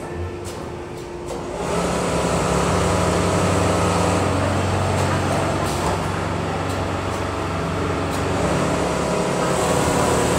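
Richpeace automatic sewing machine running a stitching cycle, a steady machine sound with a held low hum that starts about two seconds in over the factory's background hum.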